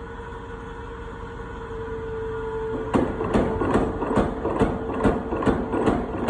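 A 1952 250 lb Little Giant mechanical power hammer, its motor running with a steady hum, and about three seconds in the ram starts hammering in a regular rhythm of about two and a half blows a second. It is running at working speed on its tightened, added-to drive belts after they had been slipping.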